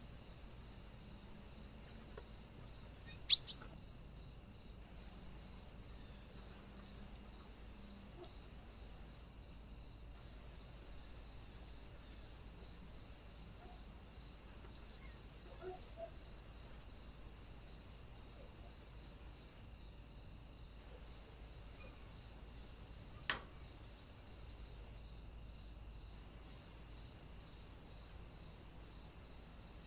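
Steady high-pitched hiss with faint, evenly spaced pulsing, broken by a sharp loud tap about three seconds in and a fainter one about two-thirds of the way through.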